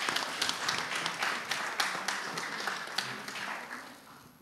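Applause from a small room audience: many hands clapping, fading out near the end.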